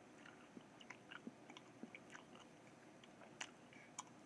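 Faint chewing of a wad of tissue paper with the mouth closed: small wet clicks and smacks at an irregular rate of a few a second.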